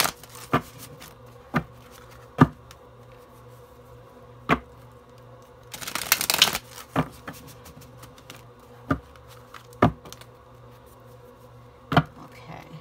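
Luna Soul tarot deck being shuffled by hand. Sharp single card clicks come every second or two, with a short burst of rapid shuffling about six seconds in.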